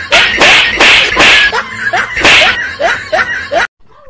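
Four loud slaps or smacks, about half a second, one second, a second and a quarter and two and a third seconds in, over a man's ongoing laughter. The sound cuts off abruptly near the end.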